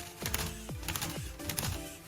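Background electronic music with clicking percussion and repeated quick falling synth notes.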